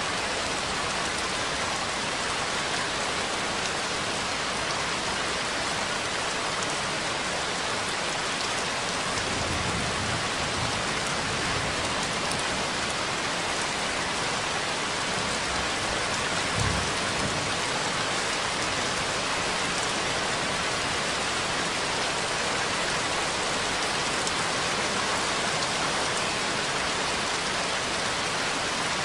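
Steady rain falling, an even hiss of many drops. A low rumble comes in briefly about ten seconds in, and a short low thump a little past halfway.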